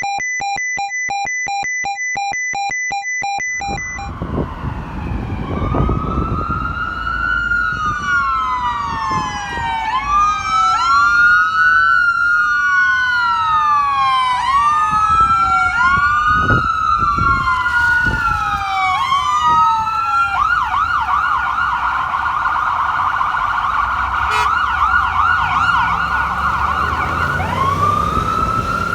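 A horn blares for about three and a half seconds, then an ambulance's electronic siren takes over in wail, rising and falling about every two seconds, switches to a rapid yelp for about seven seconds, and goes back to wail near the end, over heavy traffic noise.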